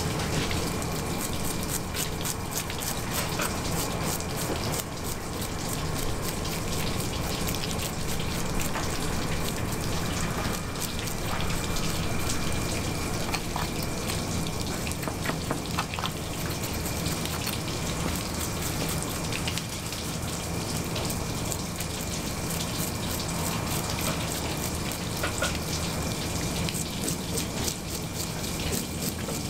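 A toothed fish scaler scraping the scales off a splendid alfonsino on a cutting board: quick rasping strokes in a dense, continuous patter, over a steady background hum.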